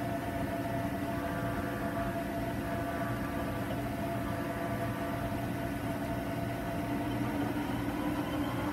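1999 Milltronics ML-17/40 CNC lathe running with its spindle and three-jaw chuck turning: a steady machine whine and hum, joined near the end by a whine that rises in pitch.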